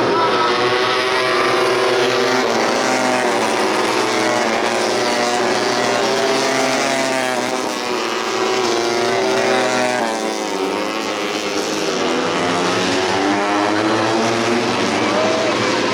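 Several tuned 150cc four-stroke underbone race motorcycles racing, their engines rising and falling in pitch as they rev through the gears, a few engines overlapping.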